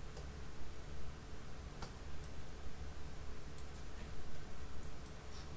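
Computer mouse and keyboard clicks, about six short, sharp clicks scattered over a few seconds, over a steady low room hum.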